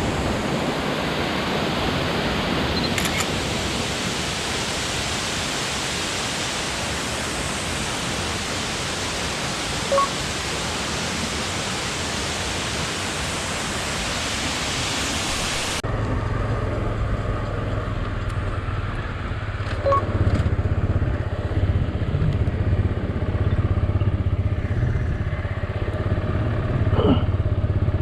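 Steady rushing water, then an abrupt cut a little over halfway through to a motorcycle engine running with a low, steady drone.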